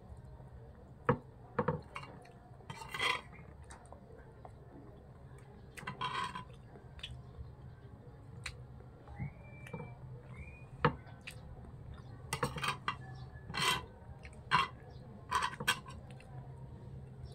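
Metal spoon clinking and scraping against a ceramic plate while eating, in scattered sharp clinks and short scrapes.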